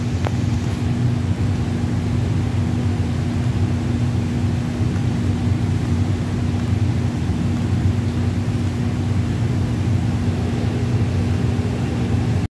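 Steady mechanical hum: a constant low tone over a rumbling drone that holds unchanged throughout, with a faint click just after the start.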